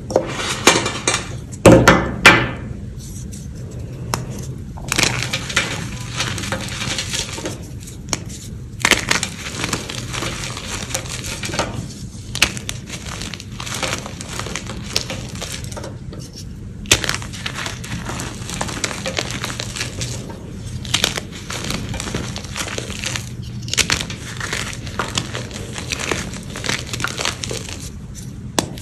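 Blocks of gym chalk crushed and crumbled by hand: irregular dry crunches and crackles as chunks break into powder, loudest in a cluster about two seconds in. A steady low hum runs underneath.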